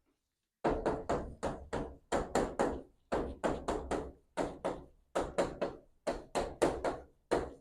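Chalk or marker writing on a board: a quick run of short taps and strokes, about three a second.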